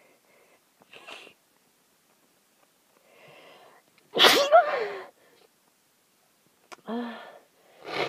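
A person with a head cold sneezes once, loudly, about four seconds in, after a short breathy intake. Smaller throaty sounds come before and after.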